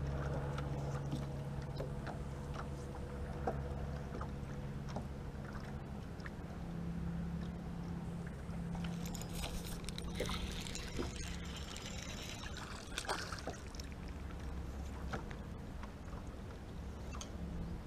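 Bow-mounted electric trolling motor humming steadily underwater, its pitch shifting a little now and then. Light clicks and rustles of reel and line handling come over it as a small crappie is reeled in on an ultralight spinning rod.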